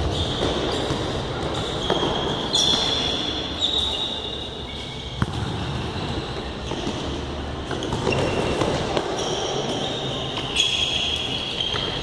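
Futsal ball being kicked and bouncing on a hard gym floor, with sneakers squeaking in short high squeals and players calling out, all echoing in a large hall.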